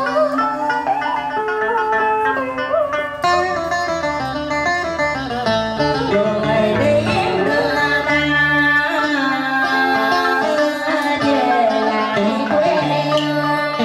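Instrumental interlude of Vietnamese đờn ca tài tử music: plucked strings play a winding melody with bent, sliding notes, over a low held note that comes and goes.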